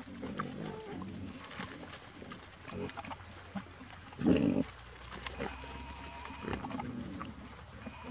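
A herd of wild boar grunting while rooting for food, with one much louder call about four seconds in, amid scattered small clicks and rustles.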